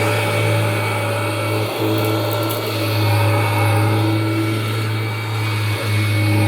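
1994 Kirby Generation 4 upright vacuum cleaner running steadily: a constant motor hum with a thin high whine over it.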